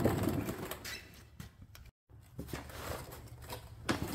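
Faint handling and shuffling noises with a few light knocks, broken by a moment of dead silence about halfway; a sharper knock comes near the end.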